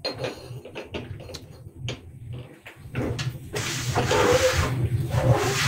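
Kitchen clean-up at the counter: a few light knocks and clatters, then from about three and a half seconds in a steady rush of running water.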